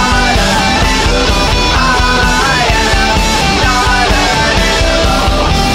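Instrumental heavy rock music with no vocals: electric guitars over a steady drum beat and bass, with a melodic guitar line moving above.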